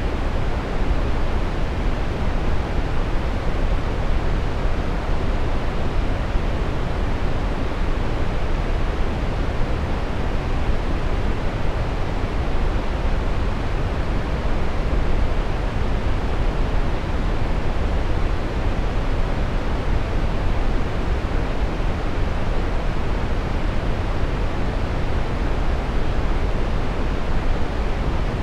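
Steady brown noise: an even, unbroken rush with most of its energy in the deep low end, falling away toward the highs.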